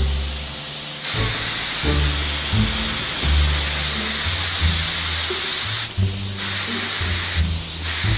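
Background music with a bass line stepping between notes, over a steady hiss that briefly drops out twice in the second half.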